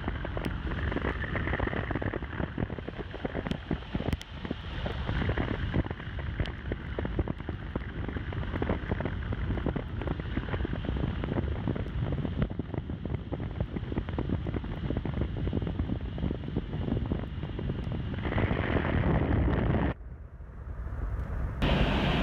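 Car driving along a road, with steady road noise and wind buffeting the microphone. The sound breaks off about twenty seconds in and comes back louder just before the end.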